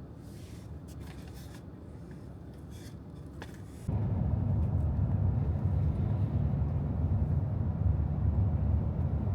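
Wind buffeting the microphone as a low, steady rumble. It jumps suddenly to a much louder, heavier rumble about four seconds in.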